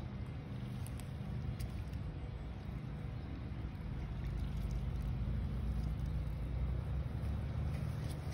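A steady low motor hum that grows a little louder about halfway through, with a few faint clicks over it.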